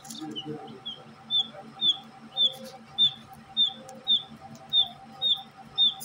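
A parrot giving a run of short, high chirps, about two a second, soft at first and louder from about a second in.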